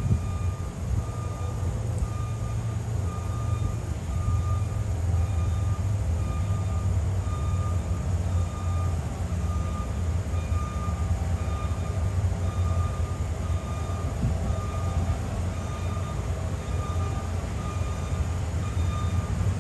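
A heavy vehicle's engine running with a steady low rumble, over a high beep that repeats about once a second.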